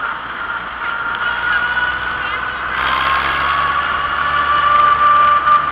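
Old tractor's engine running as it drives along a paved road, with a rushing noise and a steady high-pitched whine over it. The whole sound gets louder about three seconds in.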